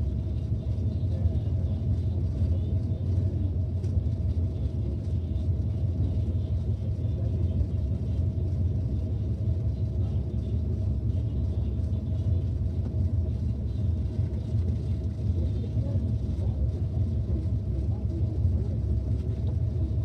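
Pickup truck under way: a steady low engine and road rumble with a faint steady hum above it.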